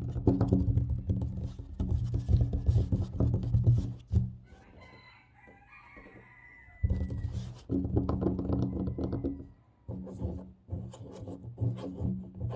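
Fast, aggressive fingertip tapping and scratching on a tabletop in quick rolling bursts, each tap giving a hollow low knock. The tapping pauses for about three seconds near the middle, where a faint wavering pitched call sounds.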